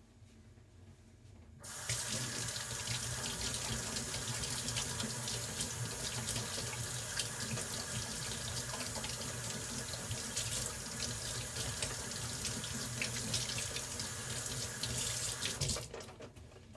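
Kitchen tap turned on about a second and a half in, water running steadily into a sink, then turned off near the end.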